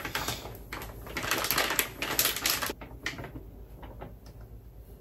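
Crinkling and rustling of a plastic flour bag as flour is poured from it into a plastic measuring cup, a dense crackle for about two seconds, then a few light clicks as the cup is handled over a steel bowl.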